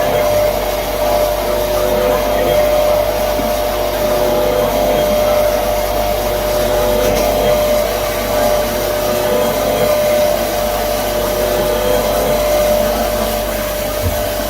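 Accuway UT200A CNC machine running a milling cut: a steady whir with a constant high tone over a broad hiss.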